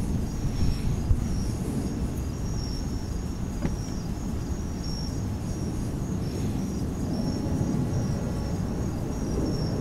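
Crickets chirping in a steady high pulse, about two chirps a second, over a low rumble of wind buffeting the microphone.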